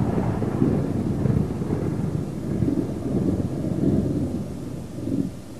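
Deep rolling rumble of an explosion dying away slowly, with a couple of smaller swells as it fades.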